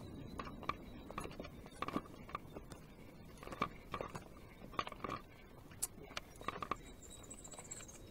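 Faint, irregular knocks and clicks of footsteps and a tripod being handled on a wooden porch.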